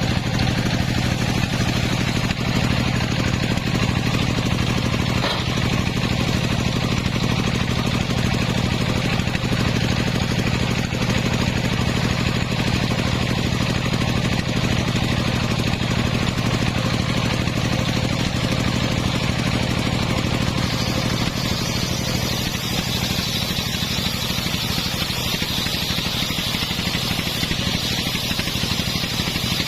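Engine of a homemade circular sawmill running steadily under a constant low hum. About two-thirds of the way through the sound shifts: the low engine note drops back and a higher hiss grows stronger.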